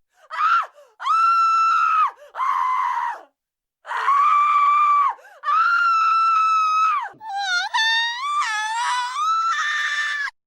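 Stock sound-effect human screams: a run of about six high-pitched screams, most of them held for a second or more with short pauses between, the last ones wavering and shaky.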